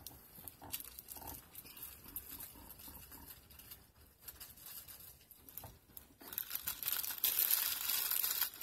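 Plastic bag of foam beads crinkling as it is handled and tipped over a cup, loud from about six seconds in, after a stretch of faint small handling clicks.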